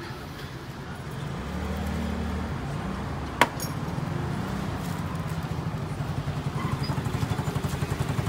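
Motor vehicle engine running close by: a low rumble that settles into a fast, even throb over the second half. A single sharp click sounds about three and a half seconds in.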